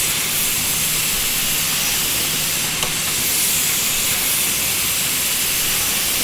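Woodworking machinery running with a steady, loud hiss, with a faint tick about three seconds in.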